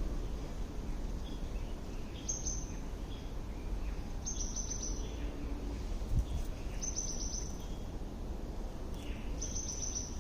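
A songbird singing the same short phrase four times, about every two and a half seconds: a high note run into a quick series of falling notes, over a steady low background rumble.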